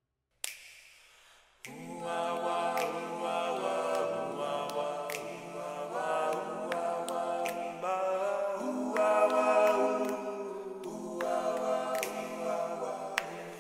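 A cappella choral music: layered voices hold long chords that shift every second or two. They come in about a second and a half in, after a single sharp hit, with a few sharp clicks over them.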